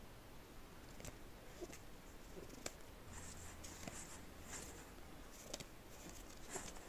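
Faint handling of stiff game cards, slid and flipped through in the hand: soft swishes of card on card and a few light clicks.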